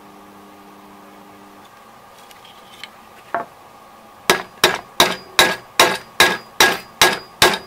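A low steady hum stops before two seconds in. Then a hammer beats red-hot steel flat on a bench vise's flat anvil plate: one lighter blow, then a quick, even run of about nine ringing metal-on-metal strikes, some two and a half a second.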